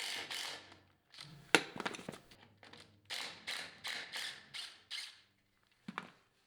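A series of short rasping strokes on metal, at times about three a second, with a sharp metallic knock about a second and a half in.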